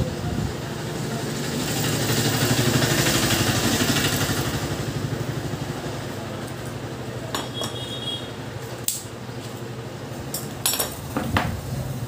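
A motorcycle engine running steadily, growing louder about two to four seconds in and then easing off. In the second half come several sharp metallic clinks of tools and engine parts being handled.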